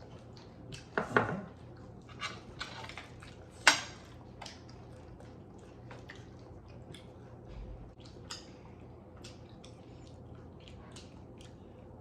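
Dishes and cutlery clinking with scattered small clicks and taps, one sharp clink about four seconds in.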